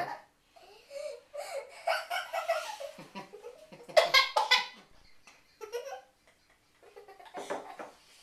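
People laughing in short bursts, loudest about four seconds in.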